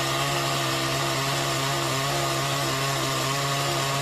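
Chainsaw running at a steady high speed, its chain cutting through a log as the saw drops through under its own weight.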